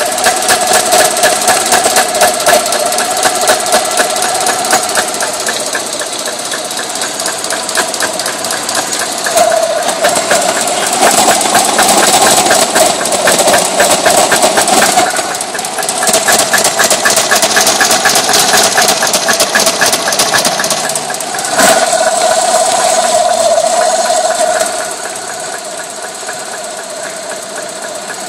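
Subaru Legacy boxer engine running half-warm with a rapid, steady knock, its level swelling and easing several times and dropping lower near the end. The owner takes the knock for the sign of a faulty idle air control valve.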